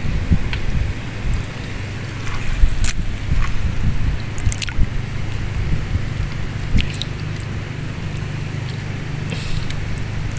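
Wind buffeting the microphone in a steady low rumble. Several short splashes and clicks of shallow water come through as the fish in the puddle are handled.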